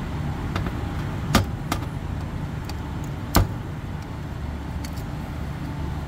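Sharp metallic clicks of a screwdriver working the terminal screws of a three-pole contactor as it is unscrewed and pulled out of an electrical panel. The two loudest come about a second and a half and three and a half seconds in. Under them runs a steady low machinery hum.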